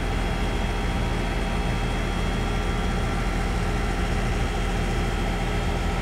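Goodman 2-ton central air conditioner / heat pump outdoor unit running steadily just after starting: a low compressor hum under the even rush of the condenser fan.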